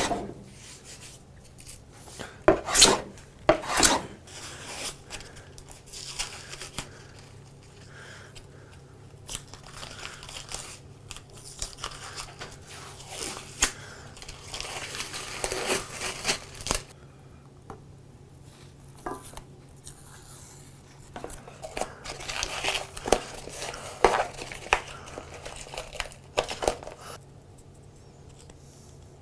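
Hand work on parts: bursts of scraping and rubbing, with a few sharp knocks near the start, dying away near the end.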